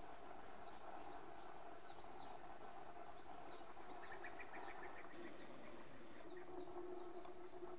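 Wild birds chirping with short falling calls, a quick run of notes about four seconds in, and a held high whistle just after five seconds. A steady low hum lies underneath.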